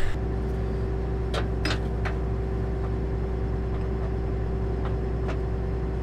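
John Deere 9770 STS combine's diesel engine idling steadily as it warms up, with the header drive disengaged: an even low hum with a constant tone over it. A few light clicks in the first two seconds.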